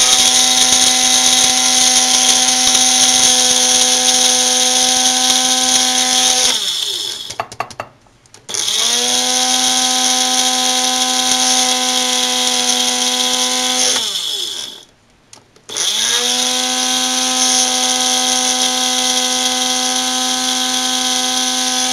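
Electric spice grinder grinding whole dry spices and roasted chickpeas to powder, with a steady motor whine. It runs in three bursts of about six seconds, switched on and off twice in between, the pitch falling away each time the motor coasts to a stop.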